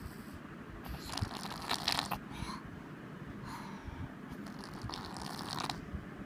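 Toddler snoring in her sleep: two snoring breaths, each a second or more long, about two and a half seconds apart.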